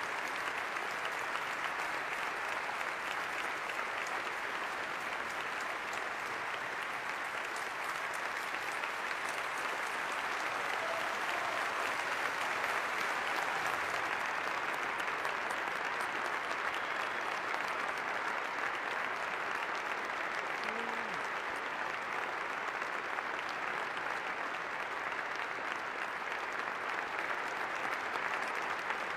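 A large audience applauding in one long, steady ovation that swells a little about halfway through.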